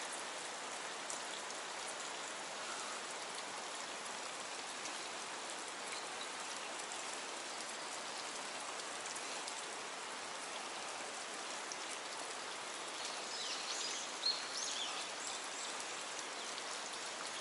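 Steady rush of fast-flowing stream water running through a rock channel. A few faint high chirps come in near the end.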